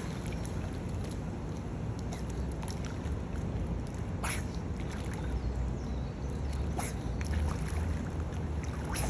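Water splashing and sloshing from a child swimming in a pool, kicking and paddling, as a steady wash of noise with a couple of sharper splashes about four and seven seconds in.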